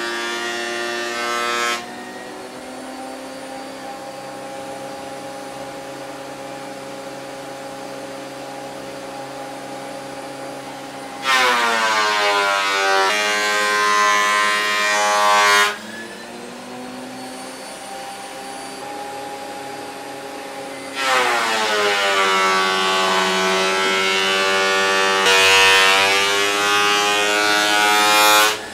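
Makita 2012NB portable thickness planer running: a steady high whine while it runs free, broken by two passes of an ash board through the cutterhead, about 11 s and about 21 s in. Each pass is loud with cutting noise, and the motor's pitch drops under load and rises again as the board clears. Another pass is ending about 2 s in.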